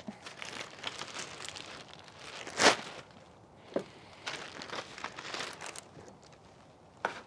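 Clear plastic zip-top bag crinkling and rustling as gloved hands open and shake it out. The rustles come in irregular bursts, with the loudest about two and a half seconds in.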